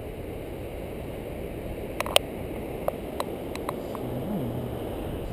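Wind buffeting the microphone, a steady low rumble, with a handful of sharp clicks between about two and four seconds in.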